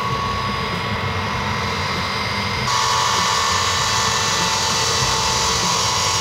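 Xian Y-20 transport's four turbofan engines whining steadily as it taxis, with several high tones held over a rushing noise. About two and a half seconds in, the sound turns suddenly louder and hissier.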